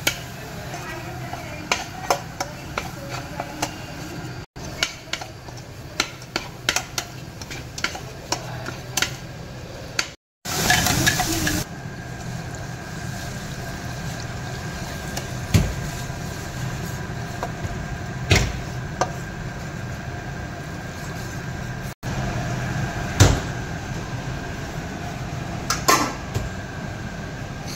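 Steel spatula scraping and clicking against a stainless-steel kadai as thick masala is stirred. About ten seconds in, water is poured into the hot pan with a brief rush. After that come a few separate knocks of utensils on the pan and lid over a steady low hum.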